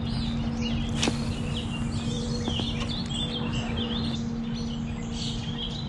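Songbirds chirping and singing again and again over a steady low hum, with a sharp click about a second in.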